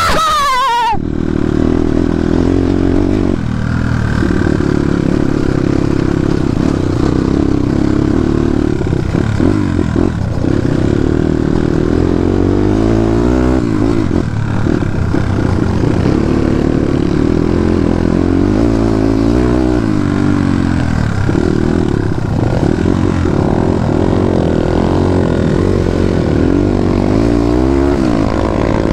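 Dirt bike engine running while being ridden, its note rising and falling as the throttle opens and closes, with a sharp high rev right at the start.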